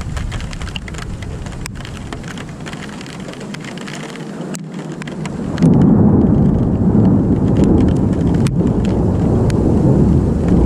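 Rolling thunder rumbling low, then swelling much louder about halfway through, with rain falling.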